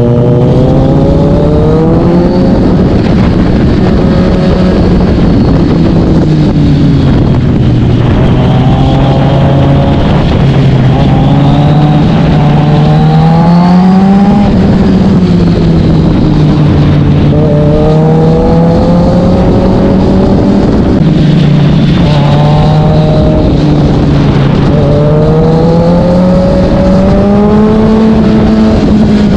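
Kawasaki Z900 inline-four running through an SC-Project S1 aftermarket exhaust, heard from the bike while riding. The revs climb and fall again and again as it accelerates, shifts and slows, several times over.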